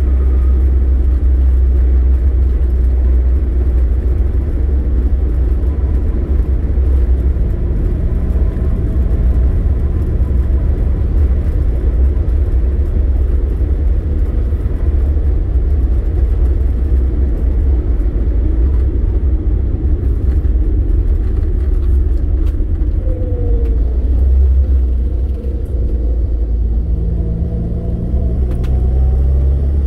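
Car engine and road noise heard from inside the cabin while driving: a heavy, steady low rumble. Near the end the loudness dips briefly, then the engine note climbs as the car accelerates.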